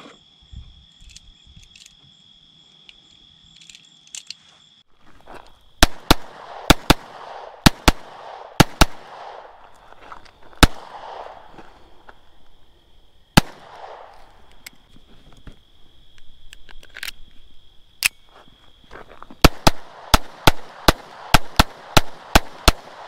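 Faint clicks of rounds being handled and loaded for the first few seconds, then a Ruger SR22 .22 LR pistol fired about twenty times. The shots come first in quick pairs and singles, then as a fast string of about ten near the end.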